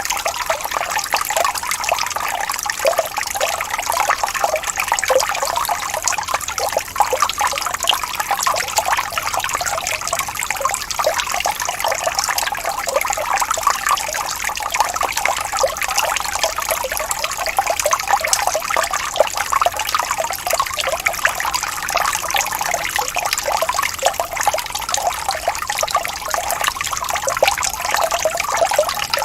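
Small waterfall splashing and trickling steadily, a dense bubbling water sound with no let-up.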